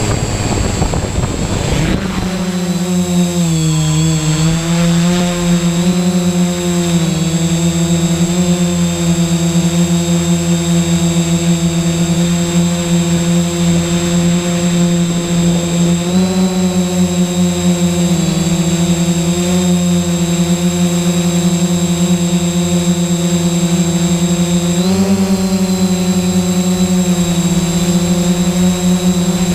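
Quadcopter's electric motors and propellers, heard through the GoPro mounted on it: a brief rushing noise as it spins up and lifts off from gravel, then a steady, loud, multi-toned hum with a thin high whine over it. The hum's pitch steps up and down a few times as the throttle changes during the climb.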